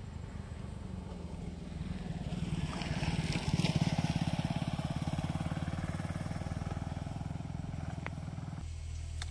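Motorcycle engine passing on the road, growing louder to a peak a few seconds in and then easing off.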